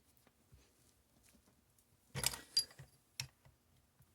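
Short clatter of metal clicks a little over two seconds in, then a single sharp click about a second later: hand tools working the spring-loaded pin of a Galil ACE folding-stock hinge.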